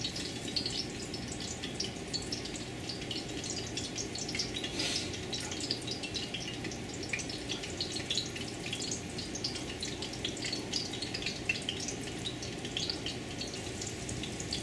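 Hot oil sizzling and crackling with many small pops in a large pan as floured gar fish balls are laid in one by one, over a faint steady low hum.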